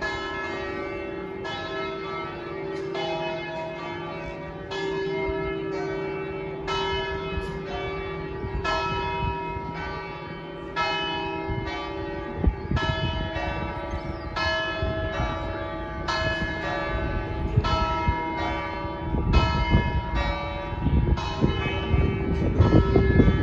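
The church bells of St Mark's in Venice ringing: several bells are struck in an uneven sequence, roughly one stroke a second. Each stroke rings on over a steady deep hum. A low rumbling noise rises underneath in the second half and is loudest near the end.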